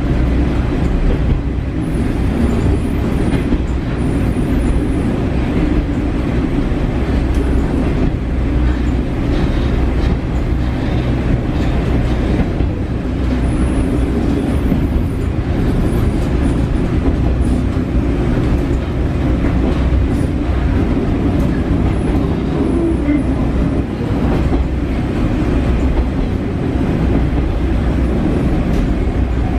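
Interior running sound of a JR Shikoku KiHa 40 diesel railcar under way: steady diesel engine drone and wheels-on-rail rumble, with faint clicks here and there.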